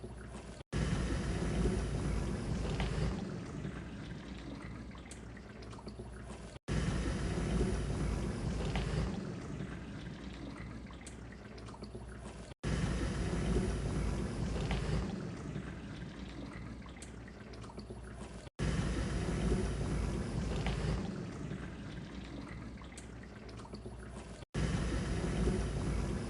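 Dishwasher running, water spraying and sloshing inside the tub. The sound repeats about every six seconds, each time cutting out for an instant, coming back loud and then slowly fading.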